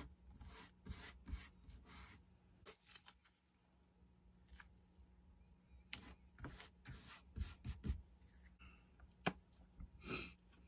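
Faint hand-handling sounds on a wooden workbench top: green masking tape being smoothed and pressed down, with rubbing, crinkling and scattered sharp taps and clicks in a few clusters.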